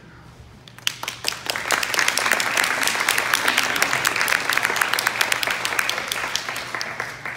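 Audience applauding: a few scattered claps about a second in, swelling quickly into full applause that fades away near the end.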